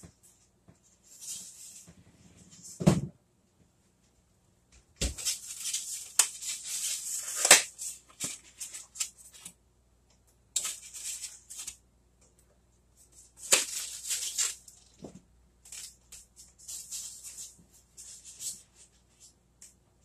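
Someone rummaging in a refrigerator and handling a plastic egg carton: bursts of rustling and rattling with a few knocks, the loudest about three and seven and a half seconds in.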